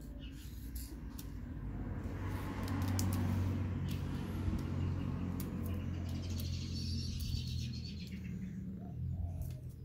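Birds chirping faintly in the background over a low rumble that swells for several seconds in the middle and then fades.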